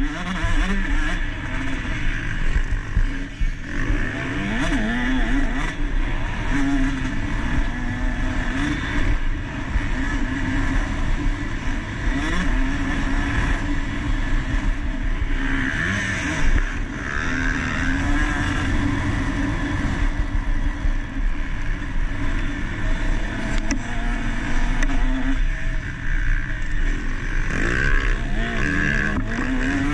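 KTM SX 150 two-stroke motocross engine running hard, its pitch rising and falling over and over as the throttle is opened and closed.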